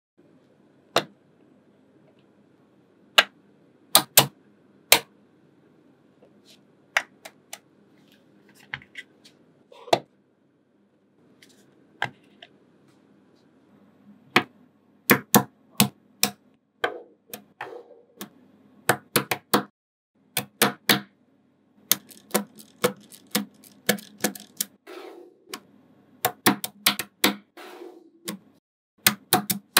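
Small magnetic balls clicking sharply as they snap together, a few scattered clicks at first, then quick runs of clicks from about halfway through.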